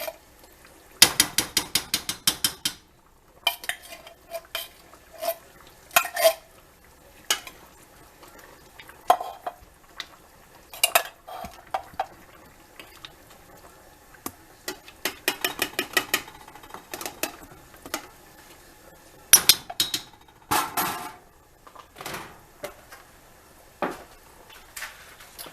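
A spoon clinking and scraping against a cooking pot while stirring and handling its contents, in quick runs of light clinks with pauses between; the busiest runs come about a second in and again in the second half.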